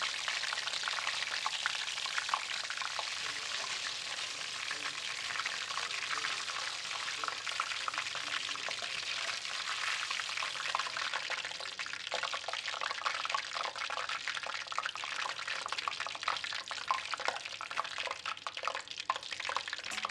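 Battered shrimp deep-frying in hot oil in a wok: a steady sizzle full of fine crackles, the crackles becoming sparser and more separate in the second half.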